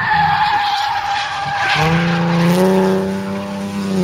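Race car tyres squealing in one steady high tone for nearly two seconds, then the engine note comes in and runs steadily.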